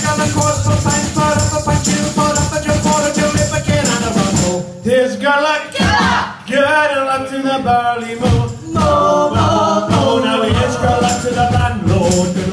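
Live folk band music with singing. The full, rhythmic band sound thins out about five seconds in and goes on with sliding melody lines.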